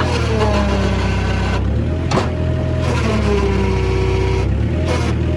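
Bobcat 743 skid steer's diesel engine running as its hydraulic controls are worked, the engine note sagging and recovering several times under the changing load. A sharp click sounds about two seconds in.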